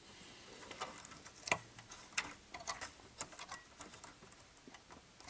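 Light, irregular clicks and rattles of a multimeter test lead and wiring being handled and clipped onto a connector inside an open metal tuner chassis.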